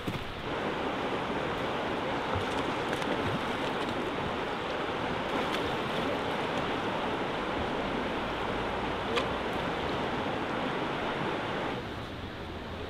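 Steady rush of the Kenai River's flowing water, becoming somewhat quieter about a second before the end.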